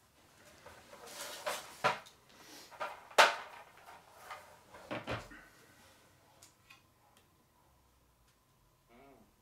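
Heavy statue pieces and their packaging being handled and set down: rustling with several sharp knocks, the loudest about three seconds in, and a dull thump about five seconds in.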